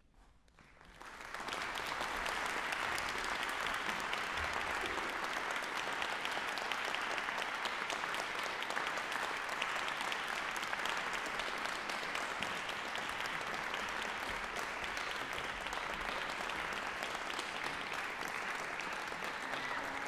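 Audience applauding, starting about a second in and quickly rising to a steady level.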